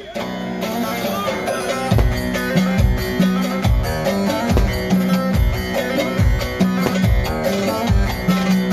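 Live Turkish folk music, instrumental: bağlama (saz) playing a quick picked melody. About two seconds in, deep drum beats join, a little faster than one a second.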